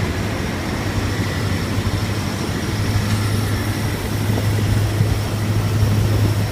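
Preet combine harvester's diesel engine and machinery running steadily: a constant low hum with a faint, steady high whine on top.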